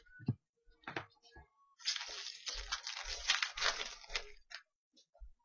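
Foil wrapper of a hockey card pack being torn open and crinkled, a dense crackling that starts about two seconds in and lasts a couple of seconds, after a few light taps of cards being handled.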